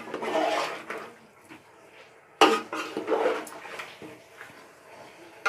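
Fish pieces in thick masala being gently stirred in a metal pot, with scraping and clattering against the pot's sides; a sharp knock about two and a half seconds in starts a second bout of stirring.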